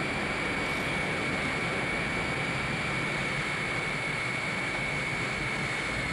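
Boeing 367-80 "Dash 80" jet prototype's overhauled Pratt & Whitney engines running on the ground: a steady rushing noise with one high, steady whine over it.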